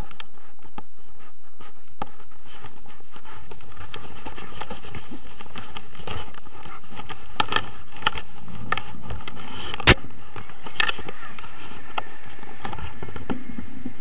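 Steady wind noise on a tandem paraglider's camera, with scattered knocks and scrapes from the harness and selfie-stick handling. The loudest is a sharp knock about ten seconds in.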